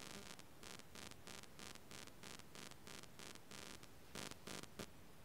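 Faint, even scratching ticks, about four a second, that stop shortly before the end.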